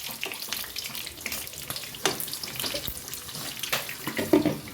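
Smokies (smoked sausages) frying in hot oil in a covered pan: a steady sizzle with scattered crackles and pops, and one short louder sound near the end.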